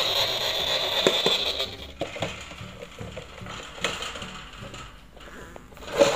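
Scattered clicks and knocks of a perforated plastic nest box and a wire cage being handled, the loudest about a second in and near the end, after a steady hiss that stops about two seconds in.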